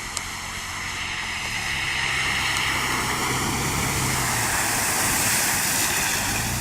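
Jeep engine running steadily under a loud rushing hiss of water and air as it drives through the sea; the rush swells toward the middle and eases near the end.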